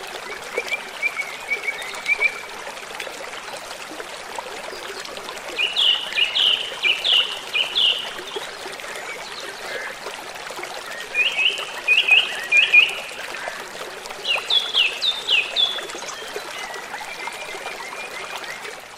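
Water trickling steadily, with small birds chirping over it in a few short runs of quick notes.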